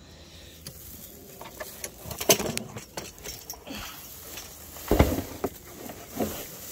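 Dry hay rustling and crackling as it is handled, with scattered light clicks and two louder knocks, the loudest about five seconds in, as a plastic feed tub is moved against the hay.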